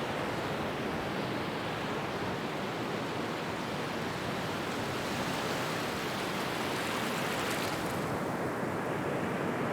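North Sea waves washing in a steady rush of surf noise, with a brighter hiss of a breaking wave about seven to eight seconds in.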